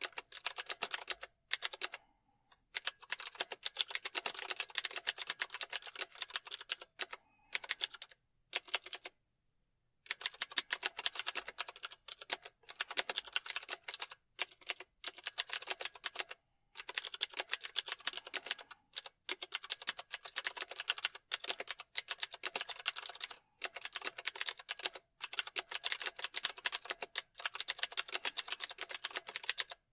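Typing on a computer keyboard: rapid key clicks in runs of a few seconds, broken by short pauses, the longest about nine seconds in.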